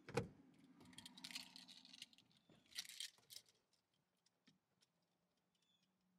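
A thump just after the start, then two brief bursts of jingling and rustling from a bunch of car keys moving in a hand as the sun visor is handled, followed by a few faint clicks.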